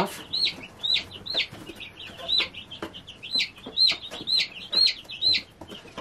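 A days-old broiler (meat bird) chick peeping loudly in distress, short high peeps repeated about two or three a second, while it is held and its vent is wiped with a wet cloth to clear pasty butt.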